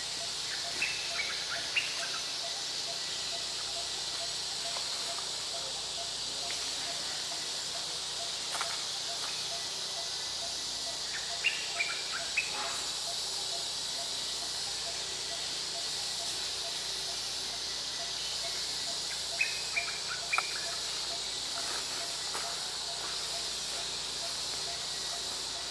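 Steady insect chorus, a high even hiss, with a faint low note pulsing at an even pace. Three brief clusters of short chirps stand out above it: about a second in, about 12 seconds in and about 20 seconds in.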